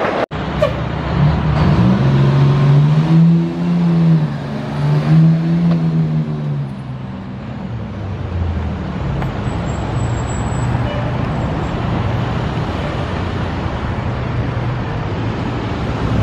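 Fire engine's diesel engine pulling along the street, its pitch rising and falling twice, then settling into a steady low rumble among passing car traffic.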